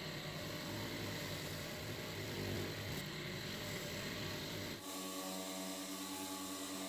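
Bench grinder running while rusty steel pincers are held against its spinning wheel, giving a steady scraping rub of metal on the wheel to strip the rust. About five seconds in the sound changes abruptly to a steadier, pitched hum.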